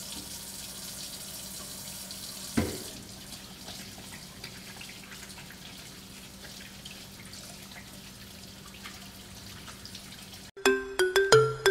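Tap water running and splashing onto a wet cat in a tiled shower, a steady hiss with a single knock about two and a half seconds in, after which the water sound is lower. Music begins near the end.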